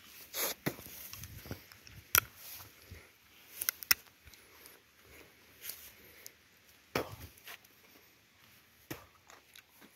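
A few sharp cracks and clicks at irregular intervals, a second or more apart, with quiet footsteps on a dirt track.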